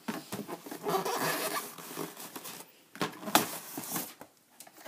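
Cardboard box and plastic wrap being handled: steady rustling and scraping for about two and a half seconds, then a few short scrapes and knocks as the box lid is moved.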